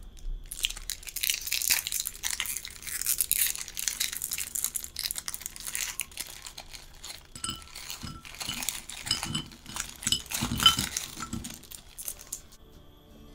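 Plastic Oreo cookie sleeve crinkling and tearing open. About halfway through, the cookies tumble out onto a ceramic plate in a run of light clinks and clatters.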